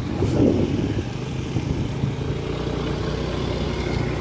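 Motorcycle engine running at a steady road speed while riding, a low hum that steadies about two seconds in.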